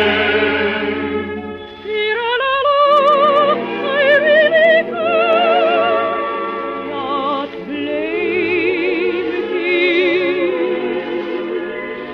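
Operatic singing from a 1950s operetta broadcast: a high voice with wide vibrato climbs about two seconds in and holds long notes over an orchestral accompaniment.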